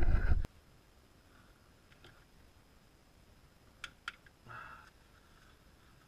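A loud rough noise cuts off suddenly about half a second in. It is followed by near quiet, then two light clicks about four seconds in and a brief scrape just after, from hand tools on metal parts in a car's engine bay.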